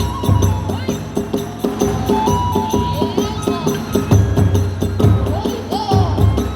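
Kagura hayashi music: taiko drums beaten in a fast, steady rhythm with small hand cymbals clashing on the beats and a bamboo flute playing a wavering melody above.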